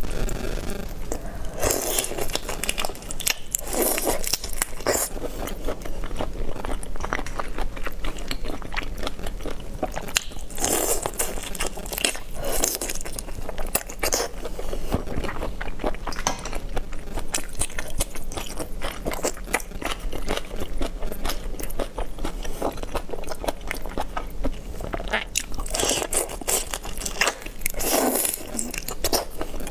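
Close-up eating sounds of whole marinated prawns: shells crackling and crunching as they are pulled apart and bitten, with wet chewing in between. The crunches come in louder clusters, the strongest near the end.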